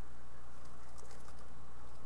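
Steady low electrical hum and hiss from a nest-box camera microphone, with a few faint scratches as house finch fledglings shift about on the floor of the box.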